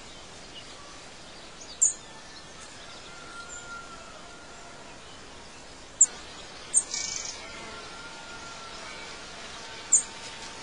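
Birds chirping over a steady background hiss: four short, sharp, high chirps spread through, with faint thin whistles between them.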